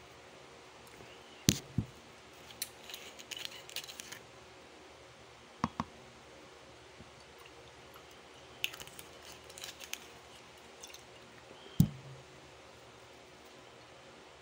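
Handling noise from a phone close to its microphone: four sharp knocks, the loudest near the end, with two runs of light clicks and rustles in between.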